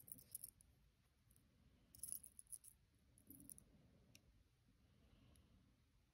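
Faint small metallic clicks and clinks of flat-nose jewelry pliers gripping and squeezing a gold jump ring closed, in a few short clusters: at the start, about two seconds in, and around three and a half seconds, with one last tick a little later.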